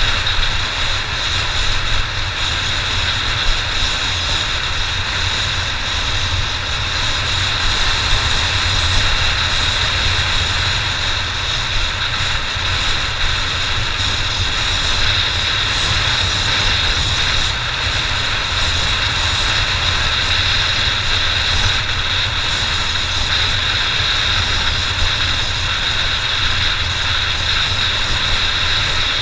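Honda XR600's air-cooled single-cylinder four-stroke engine running steadily while riding, with wind rush. A steady high whine sits over it throughout.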